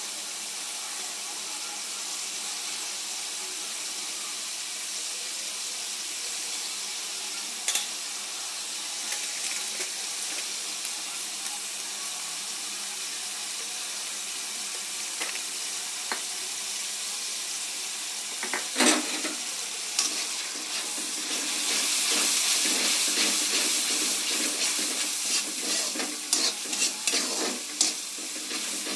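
Food sizzling in a cooking pan with a spoon stirring and knocking against the pan. The sizzle swells louder about twenty seconds in, and the stirring knocks come thick and fast after that.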